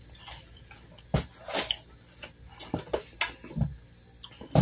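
Scattered knocks, clicks and rustling of household items being handled and moved about. There is a sharp knock about a second in and a louder one at the very end.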